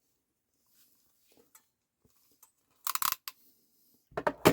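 KFC PTEC KF-30J ratcheting crimping pliers clicking as the handles are squeezed down on a butt connector: a quick run of sharp clicks about three seconds in, then a louder run near the end, the loudest snap as the ratchet bottoms out and releases.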